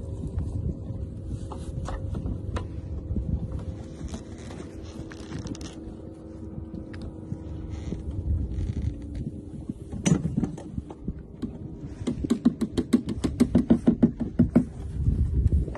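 Steady low rumble of wind and water on a small boat, with a faint hum underneath. About two-thirds of the way through there is a single knock, then near the end a quick run of clicks, about six a second, lasting a few seconds.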